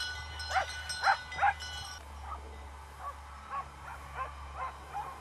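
An animal giving a run of short, barking calls, about two or three a second. The calls are loud at first, then fainter and more spaced out from about two seconds in.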